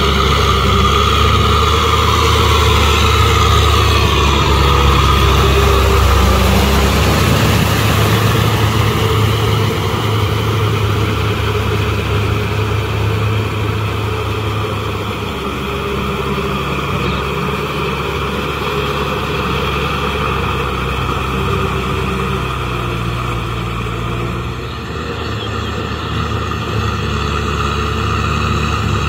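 Farm tractor's diesel engine running steadily under load as it works a flooded, muddy field, a continuous low drone. It eases slightly about eight seconds in and dips briefly near the end.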